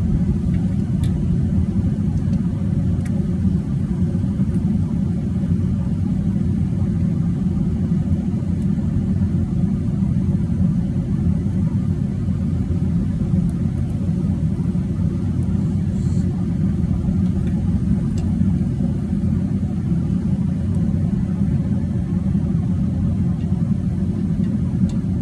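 Steady low rumble with no clear pitch, with a few faint clicks and small knocks over it.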